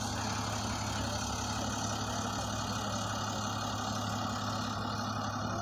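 A vehicle engine idling steadily, a constant low hum.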